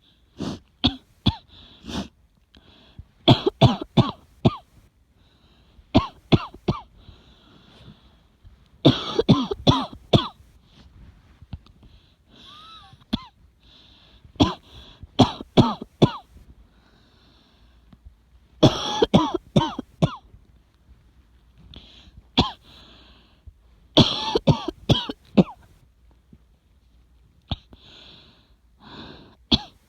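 A person coughing in repeated fits, about ten bouts of several hard coughs each in quick succession, with breaths drawn in between. The uploader labels it an asthma cough.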